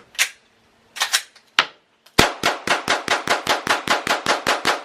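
Gunshots at a shooting range: a few single shots in the first two seconds, two of them close together, then a rapid string of about sixteen shots, roughly six a second, running to the end.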